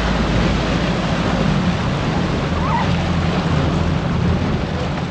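Wind buffeting the microphone and water sloshing against a boat, over the low, steady running of an outboard motor.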